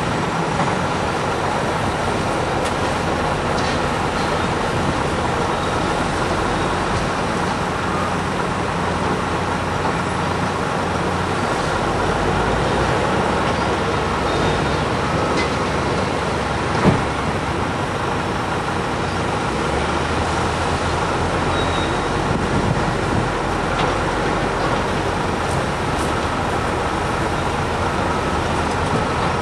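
Heavy diesel earth-moving equipment, a Caterpillar excavator and a bulldozer, working with engines running in a steady mechanical din. One sharp knock comes about 17 seconds in.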